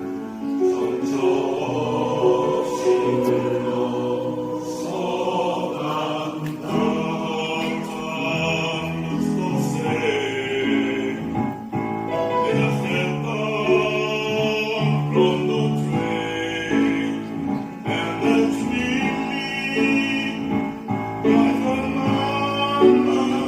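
Choir singing a song in several parts at once, with accompaniment.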